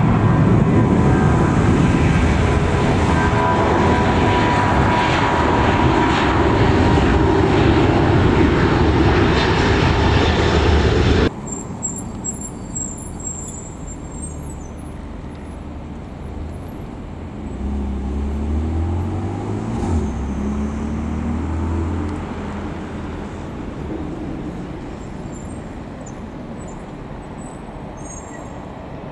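Loud jet airliner engine noise with a steady whine, cutting off abruptly about eleven seconds in. After that comes a much quieter outdoor background, with a low engine sound swelling and fading in the middle and a few faint high chirps.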